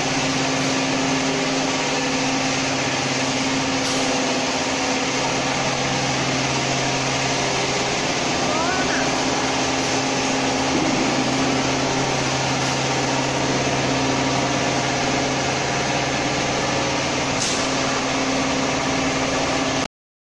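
Steady machinery hum with a constant low drone and an even hiss, which cuts off abruptly near the end.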